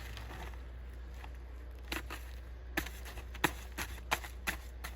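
Concrete being mixed by hand: irregular sharp scrapes and knocks as the tool works through the wet mix, the loudest about three and a half seconds in, over a steady low hum.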